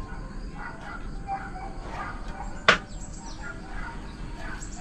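Scattered short bird chirps in the background, with a few quick falling high calls near the end. About halfway through there is a single sharp click, the loudest sound.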